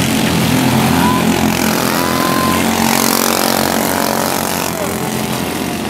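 Dirt-track race cars' engines running loud and steady at racing speed, several engines blending together.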